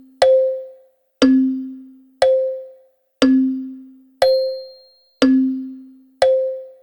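Wall clock ticking once a second in an even tick-tock, the beats alternating between a higher and a lower note, each with a short ringing decay.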